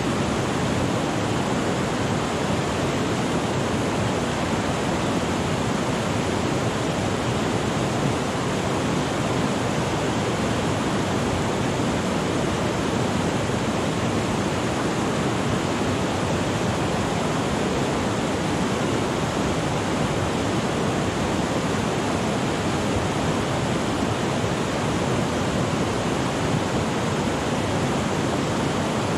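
Whitewater rapids rushing over and around boulders: a steady, unbroken roar of white water.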